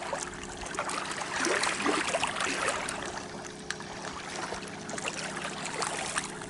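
Lake water lapping and trickling among the stones at the shoreline, in a run of small irregular splashes.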